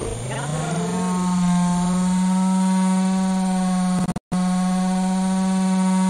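Stihl MS 250 two-stroke chainsaw revving up to full throttle during the first second, then held at a steady high-pitched whine. The sound drops out for an instant about four seconds in.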